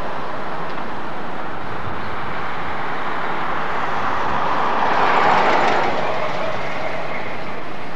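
Street traffic noise, with a car passing close by about five seconds in, its tyre and engine noise swelling and then fading.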